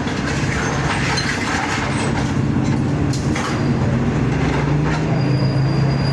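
Steady engine and road noise of a moving vehicle, a low hum with a few brief clicks and rattles.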